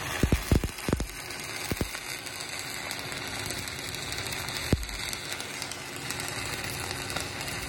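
Stick welding arc on a steel pipe branch joint, crackling steadily as the cap pass is run. A few sharp pops come in the first two seconds, and one more comes about halfway through.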